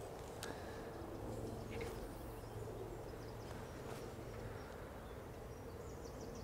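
Faint outdoor ambience by a lake: a low steady hum with a few soft clicks and some faint high chirps.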